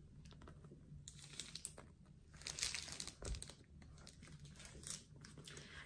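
Plastic wrapping crinkling and rustling as a grey Goyard Saint Louis tote is handled and held up, busiest between about one and three and a half seconds in, with a soft thump near the middle.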